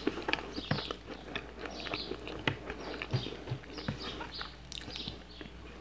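Close-miked chewing of rice and meat, with frequent wet mouth clicks and smacks at an uneven pace.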